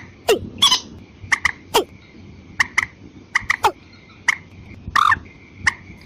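Watercock and common moorhen calling in a duet: short, sharp calls that drop steeply in pitch, about two a second, some in quick runs of two or three, over a steady high whine.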